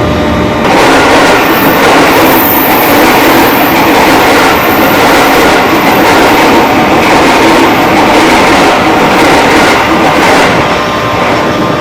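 Electric commuter train running on rails with a loud, even rushing rail noise. It swells suddenly about a second in and drops away near the end.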